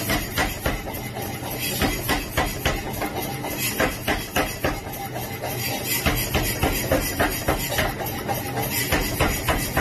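Pneumatic power hammer forging a red-hot steel bar: a steady run of heavy blows, about three a second, over the steady low hum of the running machine.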